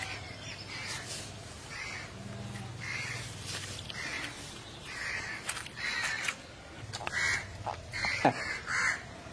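Crows cawing in the background: a string of short harsh calls, roughly one a second.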